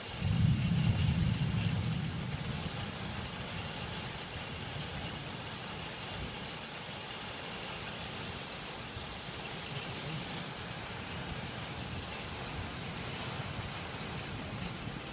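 Thunder rolling: a low rumble breaks in sharply, is loudest for the first couple of seconds, then fades into a long low roll that swells again near the end, over a steady hiss of rain.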